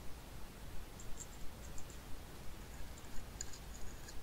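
Faint, light clicking from a small black plastic dish being handled in the fingers, with the small white snail eggs in it shifting: two clusters of ticks, one about a second in and one near the end, over a low steady hum.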